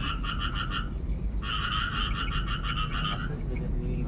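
A frog calling in rapid pulsed trills of about eight pulses a second, each bout lasting a second or two: one stops just under a second in, another runs from about a second and a half to about three seconds, and a third starts near the end.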